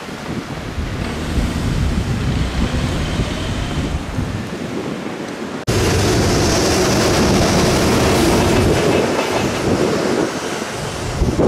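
E257-series electric multiple unit running past on the track close by. About halfway through the sound cuts abruptly to a louder stretch.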